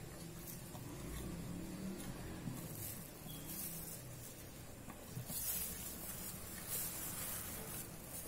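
A wire whisk stirring a thick yogurt-and-spice marinade in a ceramic bowl: faint swishing and scraping strokes at uneven intervals, coming more often in the second half.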